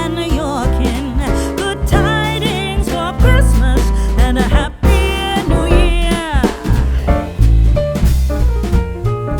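Background music: an upbeat song with drums, bass and a wavering singing voice.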